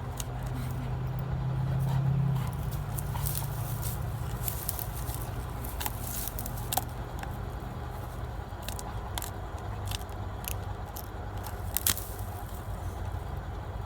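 Black Labrador chewing and tearing at a small tree, with scattered sharp cracks and snaps of wood. A steady low hum runs underneath.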